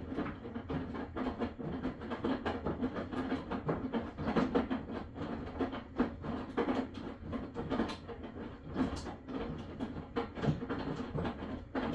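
Maytag washing machine running, with rapid, irregular knocking and clattering. The stretch starts just before and stops after about twelve seconds, with quieter pauses on either side.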